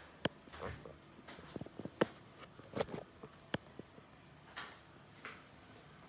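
Scattered light clicks and soft knocks with a few brief rustles, the handling and movement noise of a phone being carried through a room while filming.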